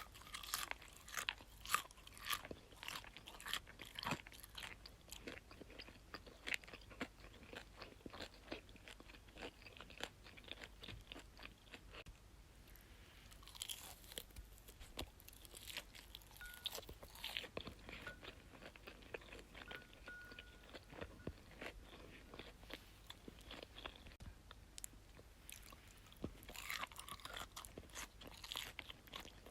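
Close-miked chewing of crisp food, with many sharp, irregular crunches that ease off briefly about halfway through.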